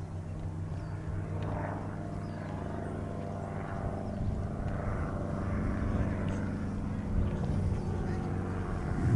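Steady engine drone, a low hum of several even tones that slowly grows louder.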